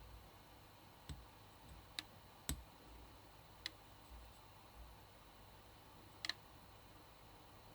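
A handful of faint, sharp clicks and light taps at irregular intervals, two in quick succession about six seconds in, from small hard parts of an M.2 heatsink and its packaging being handled, over quiet room tone.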